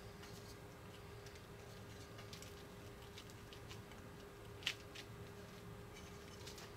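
Faint small clicks and taps of a plastic mold and stick being handled while pressing out tiny dough nuggets, with one sharper click about two-thirds of the way through. A faint steady hum sits underneath.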